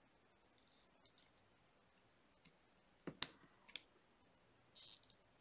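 Faint scattered clicks of pliers and 18 gauge copper wire being handled while wrapping wire around a ring's coils, the loudest a sharp pair of clicks about three seconds in, with a short rustle near the end.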